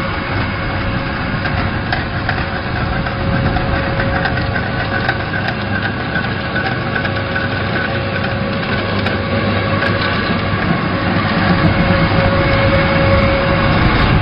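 Vertical pellet mill running steadily, pressing rice husk into fuel pellets: a continuous mechanical hum with a steady whine held above it.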